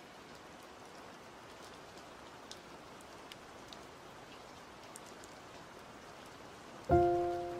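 A soft, steady hiss like rain, with a few faint ticks, under a pause in the background music. About seven seconds in, a single loud struck note of the music rings out and dies away.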